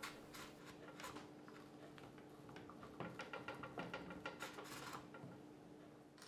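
Faint handling noise: light clicks, taps and rubbing of hands on a plastic rifle stock wrapped in masking tape, a little busier from about three to five seconds in.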